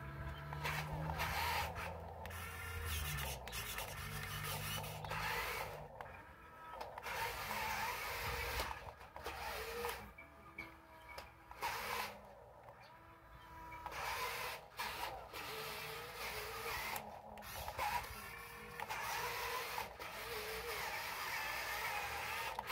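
Radio-controlled toy wheel loader's small electric drive motors and gearboxes whirring in short spurts as it drives back and forth in sand, with brief pauses between moves.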